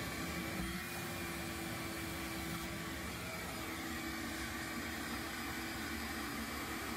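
Wet/dry shop vacuum running steadily, its hose in a toilet bowl and down in the drain, sucking out the remaining water before the toilet is removed. A steady rush of air with a low hum under it.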